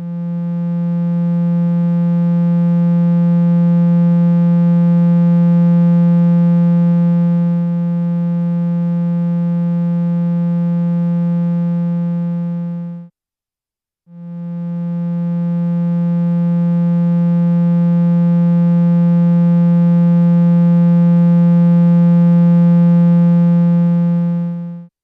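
Two long, steady, low synthesizer notes from a Eurorack modular. Each swells in over a couple of seconds, holds and then cuts off quickly. The first lasts about 13 seconds and the second, after a one-second gap, about 11 seconds. This is the sound of slow attack-decay envelopes shaping the tone.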